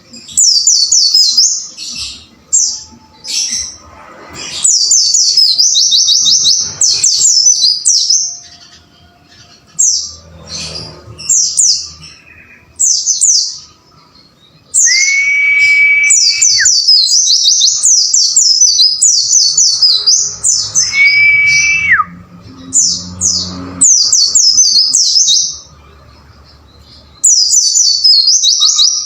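White-eye (pleci) singing a fast, chattering song of quick high down-slurred notes in repeated bursts, with two longer level whistles partway through. It is a tutoring recording of the song.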